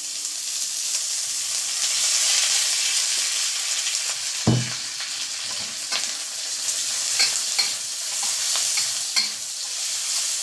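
Onion and garlic sizzling in hot olive oil in a wok, the hiss swelling over the first couple of seconds, while a spatula scrapes and clicks against the wok as it is stirred. A single dull thump about four and a half seconds in.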